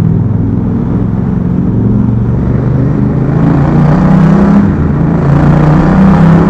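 Yamaha MT-07's 689 cc parallel-twin engine running under way, a steady engine note that grows a little louder about halfway through.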